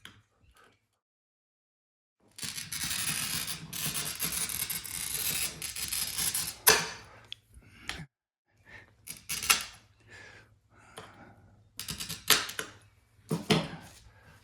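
Glass cutter on a cheap multi-tool scoring a curved line across window glass: a steady hiss for about four seconds, ending in a sharp click. Then several short clicks and knocks.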